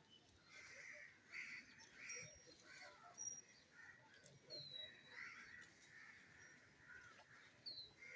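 Faint bird calls: a string of short, repeated calls, with a few brief high chirps from other birds.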